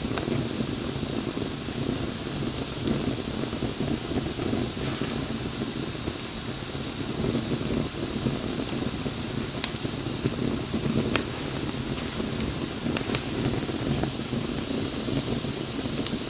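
Wood bonfire burning: a steady rushing sound of the flames, with scattered sharp crackles and pops from the burning wood.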